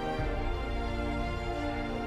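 Slow, sustained background music with long held notes.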